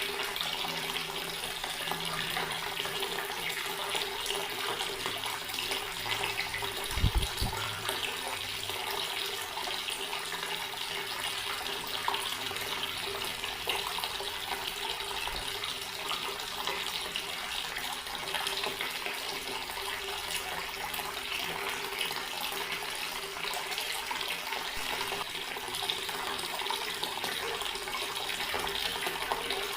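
Water running steadily from a tap and splashing into a basin, with a faint steady hum beneath it. A single low thump sounds about seven seconds in.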